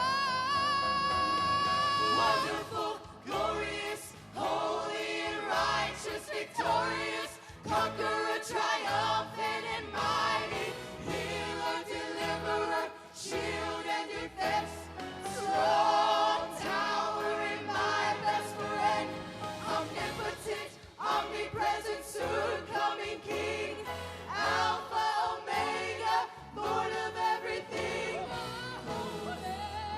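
A choir and worship band perform a gospel praise song with instrumental accompaniment. A voice holds one long note over the first couple of seconds before the singing moves on.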